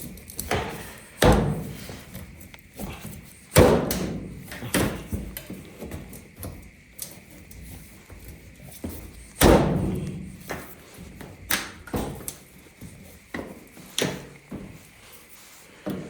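Repeated sharp metallic knocks and clicks, about six louder ones with smaller taps between, from a putty knife prying at the spring clips that hold a Roper dryer's timer in its sheet-metal control panel.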